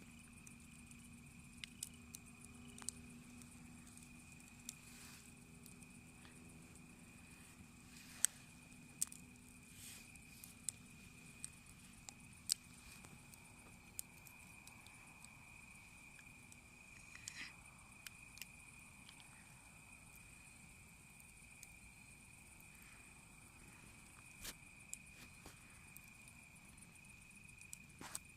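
A cricket trilling steadily on one high note through a quiet night, with a scattering of sharp clicks and pops now and then.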